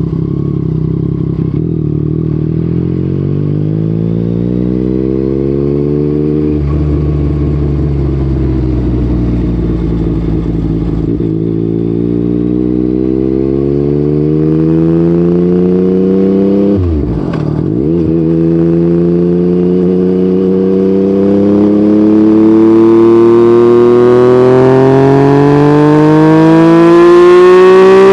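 Yamaha MT-09's three-cylinder engine through an Akrapovic exhaust while riding: the revs fall off, then climb steadily, drop sharply and recover in about a second at an upshift two-thirds of the way through, and climb again, getting louder toward the end.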